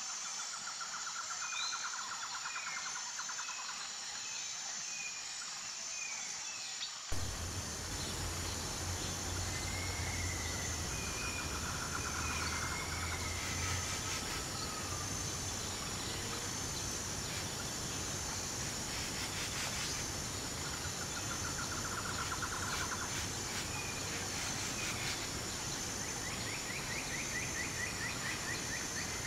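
Birds chirping and trilling repeatedly over a steady, high insect drone. About seven seconds in, the steady rush of a fast-flowing mountain river comes in under them.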